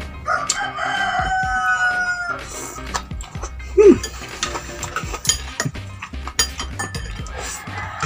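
A rooster crowing: one long held call of about two seconds near the start. About four seconds in comes a brief loud sound that falls in pitch, and light clicks and clinks of plates and eating run throughout.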